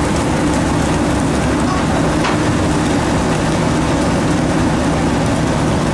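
A fishing trawler's machinery running steadily as the full net is hauled aboard: an even low hum under a constant hiss.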